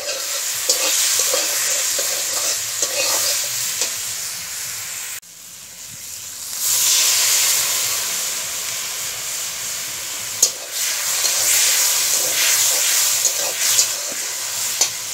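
Dried fish and spice paste sizzling in hot oil in a metal wok, with a spatula stirring and scraping against the pan in scattered clicks. The sizzle breaks off abruptly about five seconds in, then comes back louder.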